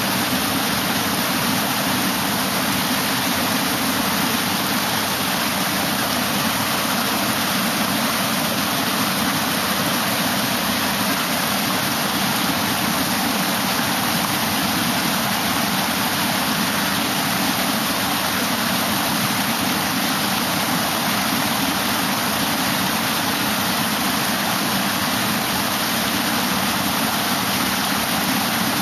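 Water rushing steadily over the weirs of a stepped concrete fish ladder, an even, unbroken noise of cascading white water.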